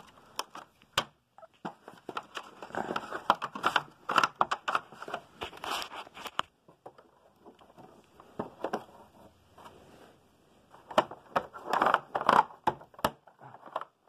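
Handling noise: irregular plastic clicks, knocks and rustling in clusters, busiest in the first half and again later, with a sparser stretch in the middle. The vacuum is not running.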